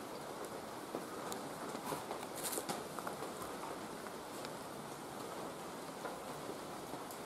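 Steady patter of light rain, with a few faint ticks.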